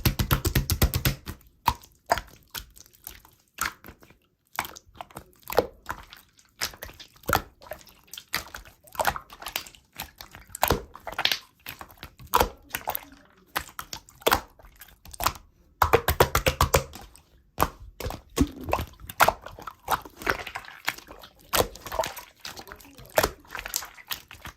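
Slime being squished and pressed by hand, giving a steady run of irregular wet clicks and pops, with denser flurries at the start and about two-thirds of the way through.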